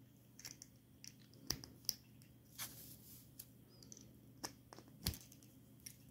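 Faint, scattered small clicks and taps of plastic minifigure parts being handled: a head is pulled off a minifigure and a helmet pressed on.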